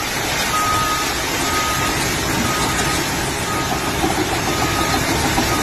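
Heavy vehicle's reversing alarm beeping about once a second over the steady running of its engine.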